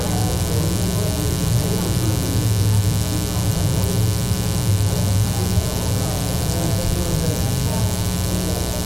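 Loud, steady electrical mains hum with a buzzy edge, picked up through the church's sound or recording system.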